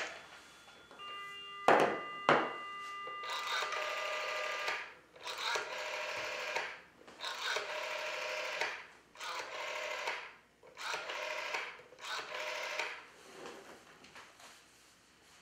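Black rotary telephone: a clack as the handset is lifted, two sharp clicks and a steady dial tone. Then the rotary dial is wound and whirs back several times, each return lasting about a second, with the last ones fainter.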